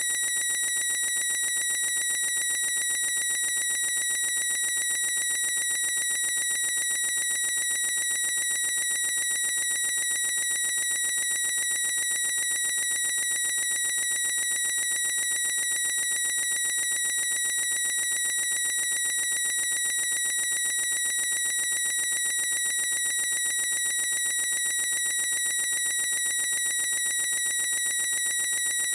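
A boy's high-pitched squeal, drawn out unbroken at one unchanging pitch, shrill like an alarm tone.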